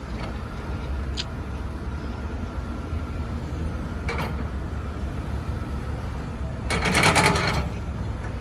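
Doosan DX225LC crawler excavator's diesel engine running with a steady low rumble, with two short clanks and a louder metallic rattle of under a second near the end.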